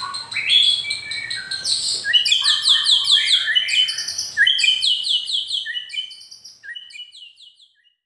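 Caged white-rumped shama (murai batu) singing a fast run of short, high, downward-slurred notes, several a second, that fades out near the end.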